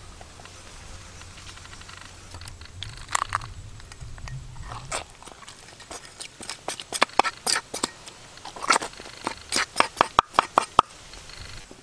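A knife scraping along the body of a red tilapia on a wooden chopping board, scaling the fish: runs of quick, sharp scraping strokes that start about halfway through and are loudest near the end.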